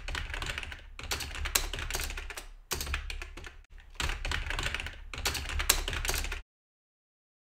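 Computer keyboard typing in quick bursts of keystrokes with short pauses between them, stopping abruptly about six seconds in.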